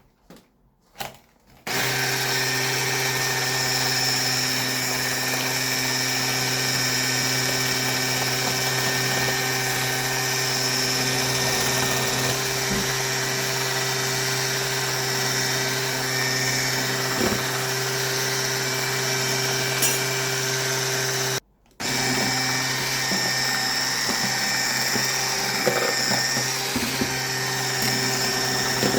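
Electric kitchen mixer running steadily at a constant speed with an even motor whine. It cuts out briefly about two-thirds of the way through, then runs on.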